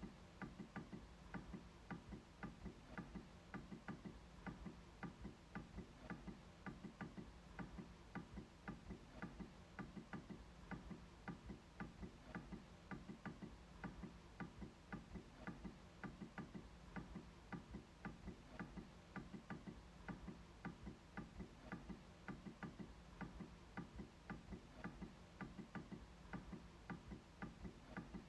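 MacBook trackpad being clicked repeatedly: a faint, steady run of small clicks, about three a second.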